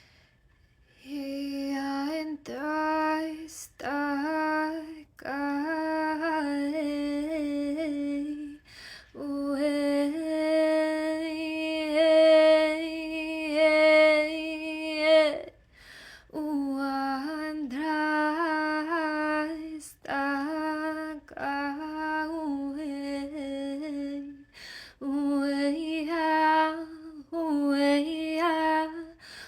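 A woman's voice chanting light language: wordless sung phrases, mostly on one pitch with small inflections and short breaks, with one long held note partway through.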